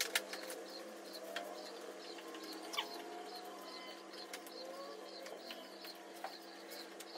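Birds calling: a quick, even run of high chirps, about three a second, over lower curved calls. A few sharp clicks sound from a hand tool working the windscreen trim, over a steady low hum.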